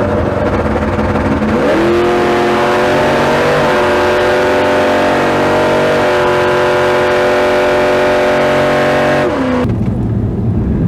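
Big-block Chevy V8 with a tunnel ram at full throttle on a drag pass, loud, its pitch climbing off the launch and then dipping only slightly at two gear changes before holding nearly level. The engine speed barely changing through the shifts is the sign of the torque converter slipping (blowing through). It cuts off suddenly near the end.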